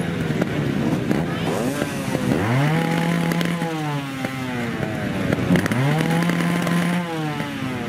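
Trials motorcycle engine running, blipped up twice: each time the pitch rises quickly, holds for about a second and a half, then drops back to a low idle.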